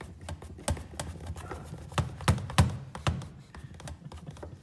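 Irregular sharp metal clicks and knocks, loudest in the middle, as pliers grip and twist the restrictor plate (the 'spoon') loose inside a 50cc scooter's exhaust pipe.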